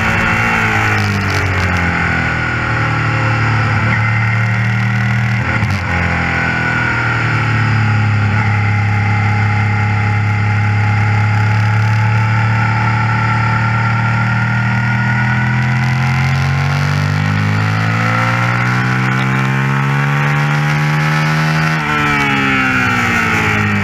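Suzuki SV 650's V-twin engine heard from on board while racing. The pitch falls at first, holds fairly steady through a long stretch, then climbs under acceleration, with an upshift near the end before it rises again.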